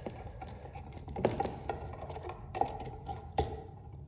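Scattered sharp clicks and taps of hands and tools working on a wall outlet and its wires, with a few louder knocks.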